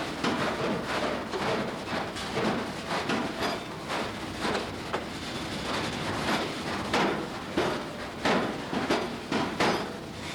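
Hand hammer striking hot steel on an anvil while forging a wrench, irregular blows, several a second at times, over a steady background hiss.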